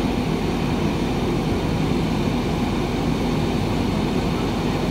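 JCB 3DX backhoe loader's diesel engine running steadily while its backhoe arm holds a slung concrete culvert pipe.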